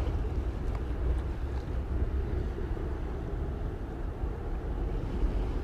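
Steady low rumble of a twin-engine narrowbody jet airliner's engines on its takeoff roll, mixed with wind buffeting the microphone.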